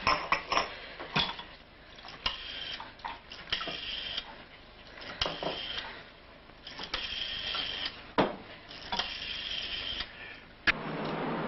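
Rotary telephone dial being dialled: about five digits, each a short whirring as the dial spins back, coming every second and a half or so. Sharp knocks of a glass and bottle on the counter fall in between.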